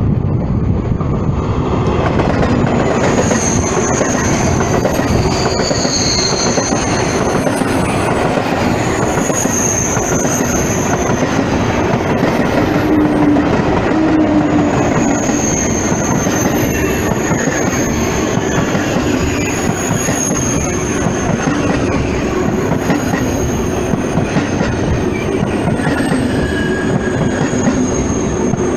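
Two coupled TGV Atlantique high-speed trainsets running past close by: a loud, steady rumble of wheels on rails with a rhythmic clatter over rail joints and a thin high wheel squeal that comes and goes.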